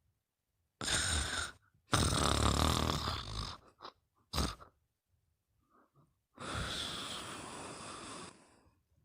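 A sleeper snoring: a snore about a second in, a longer, louder rumbling snore from about two seconds, a short snort near four and a half seconds, and a long noisy breath from about six and a half seconds.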